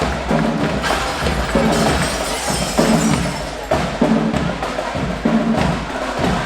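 Marching band playing, its drums and percussion driving a steady beat with strong low pitched hits about every half second.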